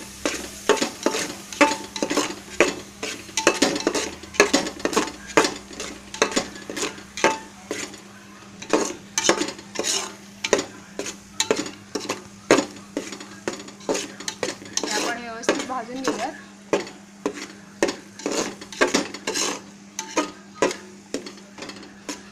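A metal spatula scrapes and knocks against an aluminium pot, about two strokes a second, stirring a thick spice masala paste as it roasts in oil.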